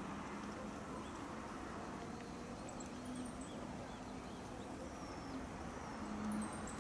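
Faint outdoor ambience: a steady background hiss with small birds chirping now and then in short, high calls, over a low steady hum.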